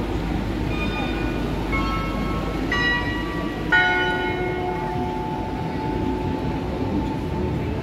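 Bell-like metallic chimes struck about once a second at changing pitches, the fifth and loudest ringing on for nearly two seconds, over a steady hum of street traffic.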